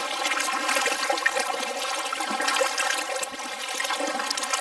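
Water rushing and splashing along the side of a moving Venture Flex 11 kayak's hull: a steady, close wash with small irregular splashes.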